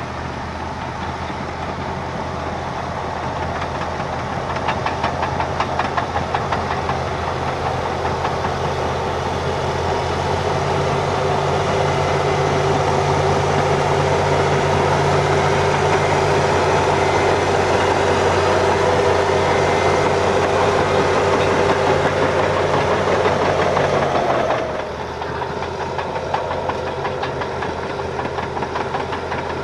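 Caterpillar D7H bulldozer's six-cylinder turbo-diesel engine running. It grows louder over the first several seconds, holds steady, then falls off suddenly about 25 seconds in.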